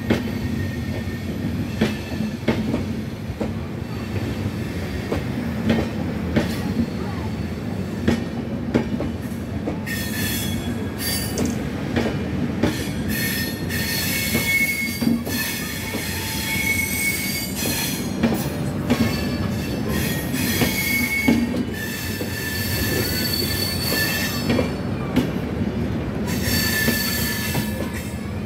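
Passenger train's LHB coaches rolling past on arrival, wheels clicking over rail joints under a steady rumble. High metallic wheel squeals come and go from about a third of the way in as the train slows into the station.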